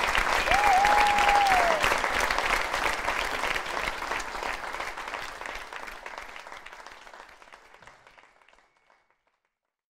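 Theatre audience applauding, with one drawn-out call from the crowd about a second in; the applause fades out steadily to silence near the end.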